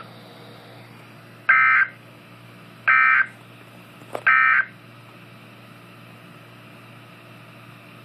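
Three short bursts of Emergency Alert System (SAME) end-of-message data tones from NOAA Weather Radio, played through a Midland weather radio's speaker and spaced about a second and a half apart. They mark the end of the broadcast Special Marine Warning. A steady low hum runs underneath, with a faint click just before the third burst.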